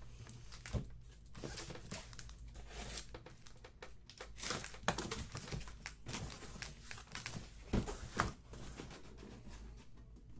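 Cardboard shipping case being opened by hand: flaps pulled and torn open, with rustling and scraping as the sealed boxes inside are slid out. Scattered sharp knocks as the boxes bump the case and each other, the loudest two about eight seconds in.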